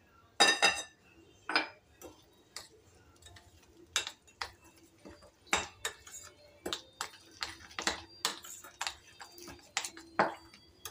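Metal spoon clinking and scraping against a bowl while stirring milk into ground biscuit powder: irregular sharp taps, with the loudest, ringing clink about half a second in.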